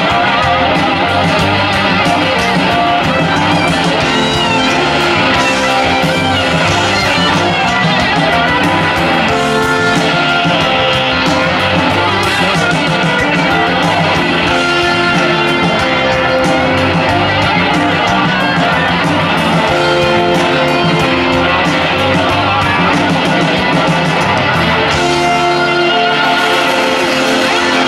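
Live rock band playing an instrumental passage: electric guitars over drums and bass.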